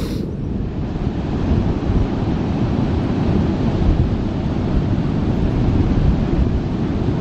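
Surf breaking and washing on a sea beach, mixed with wind buffeting the microphone in a steady low rumble.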